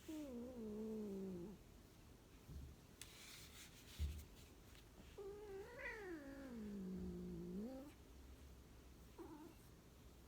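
Chinchilla Persian cat giving two long, drawn-out yowling meows, the second sliding up, down and up again in pitch, then a short call near the end. A thump and some rustling come between the calls.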